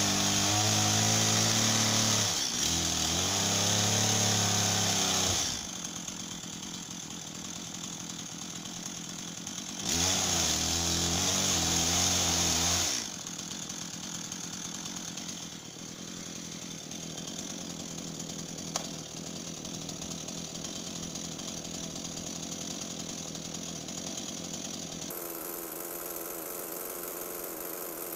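Stihl MS 170 two-stroke chainsaw run at full throttle for about five seconds, dropped to idle, opened up again for about three seconds, then left idling.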